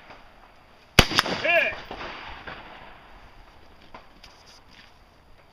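A single rifle shot about a second in, followed by a quick echo, then a short pitched tone about half a second later.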